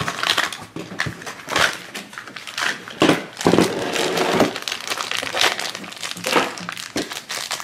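Thin white wrapping paper around a small toy figure being unwrapped and crumpled by hand: irregular crinkling and rustling with scattered louder crackles.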